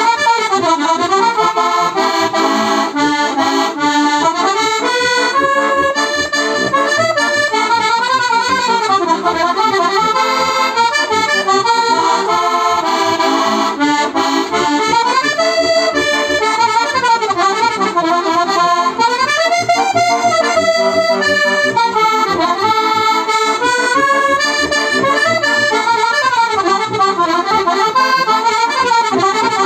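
A heligonka, a Slovak diatonic button accordion in C/F with three-voice reeds of Tipo a mano type on aluminium plates, plays a Roma folk tune: a winding melody over evenly pulsing bass and chord notes.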